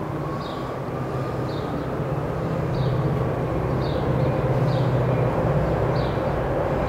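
Airplane overhead: a steady low drone that grows gradually louder. A bird chirps about once a second over it.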